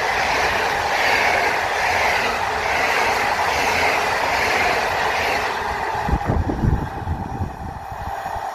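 Passenger coaches of a PKP Intercity train rolling past at speed, wheels running on the rails with a steady rushing rumble. The noise thins out after about five and a half seconds as the last coach goes by and the train draws away.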